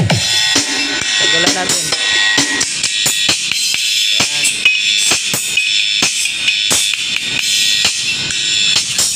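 Electronic dance music with a fast drum-kit beat played through a Broadway BDTW-102S titanium bullet tweeter for a sound check. A falling bass sweep comes at the very start; after about three seconds the sound sits almost all in the treble, crisp hi-hats and cymbals with little bass.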